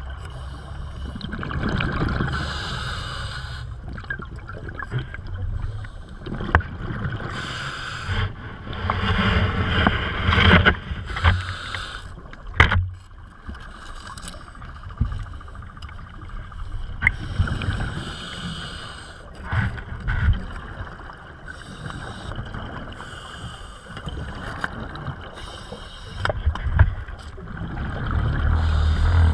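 Scuba regulator breathing heard underwater through a camera housing: a hiss on each breath in and a rumble of exhaust bubbles on each breath out, recurring every several seconds, with a few sharp knocks against the housing.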